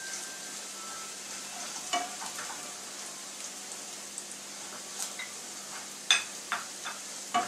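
Crushed ginger and garlic sizzling in hot oil in a nonstick frying pan while a spatula stirs and scrapes through it. The spatula knocks sharply on the pan about two seconds in and again several times in quick succession near the end.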